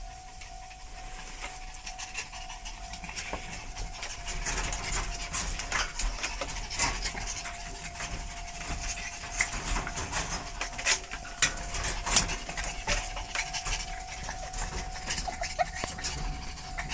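Two puppies playing and tussling on a tiled floor: panting, with scuffling paws and quick irregular clicks that grow busier from about four seconds in, over a faint steady hum.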